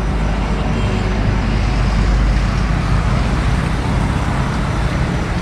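Road traffic going past: a steady noise of passing vehicles, heaviest in the low end and a little louder about two seconds in.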